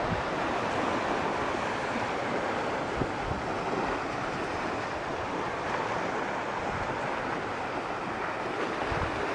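Small waves washing steadily onto a sandy beach, with wind buffeting the microphone.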